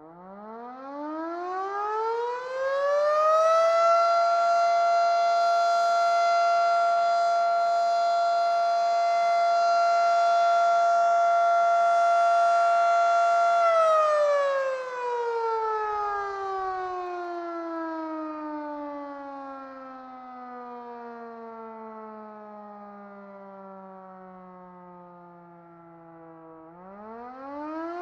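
Federal Sign & Signal Model 7 electromechanical siren starting up from silence and winding up for a few seconds to a steady tone, holding it for about ten seconds, then winding down slowly as the power cuts. Near the end it begins winding up again for the next cycle of its on-off test.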